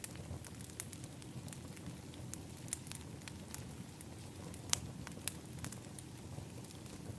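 Wood fire in an outdoor fire pit crackling, with irregular sharp pops, the loudest about two-thirds of the way in, over a steady low background rush.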